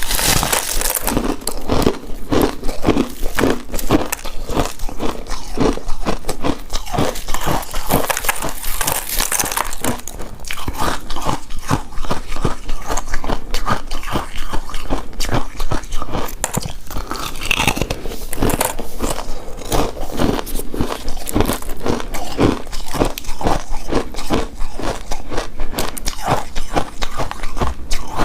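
Close-miked chewing and biting of a chewy coconut rice cake coated in shredded coconut, with a dense run of quick sticky smacks and clicks.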